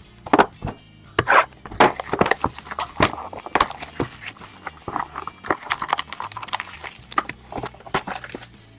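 Trading cards and plastic card holders being handled on a table: a run of sharp clicks, taps and crinkly rustling, with low background music underneath.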